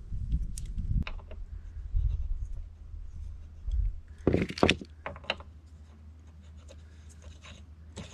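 Bike parts being handled during assembly: low bumps and rubbing, then two sharp clicks close together about four seconds in, followed by a few faint clicks.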